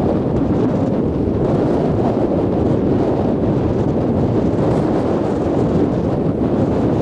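Surf washing onto a beach in a gale, with strong wind buffeting the microphone in a steady, dense rush.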